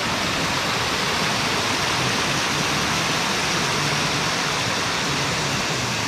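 Small waterfall cascading over rocks: a steady, even rush of falling water.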